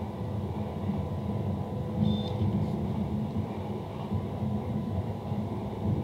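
A low, steady rumble, with a brief high beep about two seconds in.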